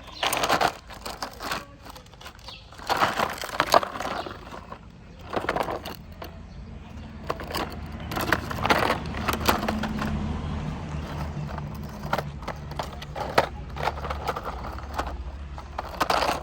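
Rocks clattering and grinding in repeated bursts a couple of seconds apart, with an engine running steadily underneath from about halfway through.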